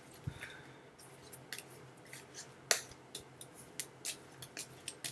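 A deck of cards being shuffled by hand: a string of short, irregular snaps and ticks.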